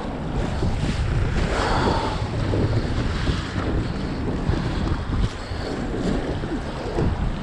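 Strong wind buffeting the microphone in a steady low rumble, over choppy water splashing around a small boat.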